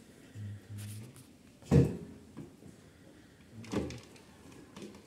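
Kitchen utensils knocking: one loud, sharp knock about two seconds in and a softer one near four seconds, with two short low hums in the first second.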